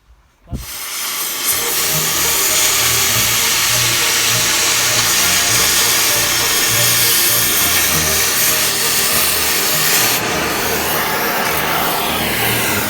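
Cutting torch lit with a sharp pop about half a second in, then hissing loudly and steadily as it cuts through the fifth wheel support bolts.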